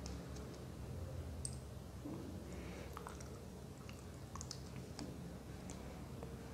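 Faint scattered clicks and taps of fingers handling a smartphone, over a low steady hum.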